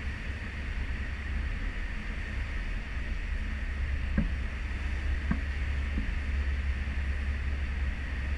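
A cruise ship under way at sea, heard from its stern balcony: a steady low rumble with a hiss of wind and churning wake. Three faint knocks come in the middle, about a second apart.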